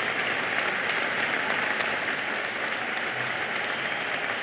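Audience applauding, a steady even clapping that swells up at the start.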